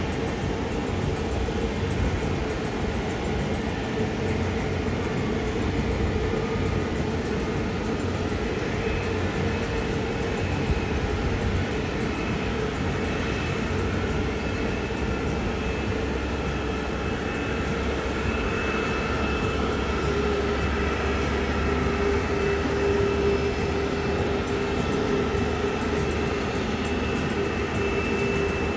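Jet airliner engines running: a steady rumble with high whining tones held over it.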